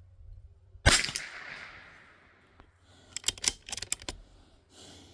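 A single .22 LR shot from a Bergara B14R bolt-action rifle about a second in, sharp and the loudest thing here, with a short tail. Then a quick run of metallic clicks from the bolt being cycled to chamber the next round.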